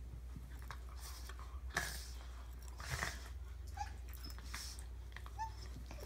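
A dog making odd noises with its head down in its bed: a string of short, breathy bursts about a second apart, the loudest near the second mark, with two brief high squeaks later on.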